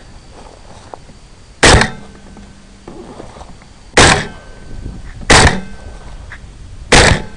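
Four AR-15 rifle shots, very loud and sharp, spaced about one to two seconds apart.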